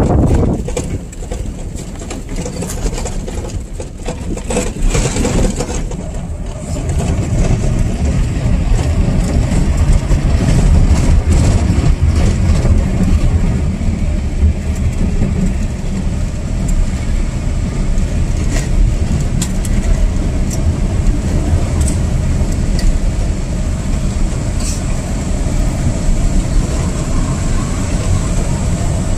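Steady road rumble from inside a moving car, engine and tyres running, growing louder about six seconds in, with scattered light clicks over it.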